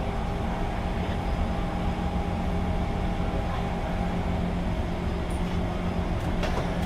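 Steady hum of a Kawasaki C151 metro train standing at the platform with its doors open, its onboard equipment giving a few steady low tones. A couple of sharp knocks come near the end as the doors start to close.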